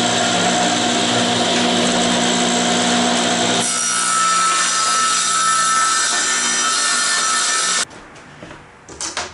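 Small benchtop table saw running and ripping a thin wooden sheet, a loud steady whine with a hum underneath. About four seconds in the sound shifts to a higher whine as the cut finishes, and the saw sound stops suddenly near the end, followed by a couple of light knocks.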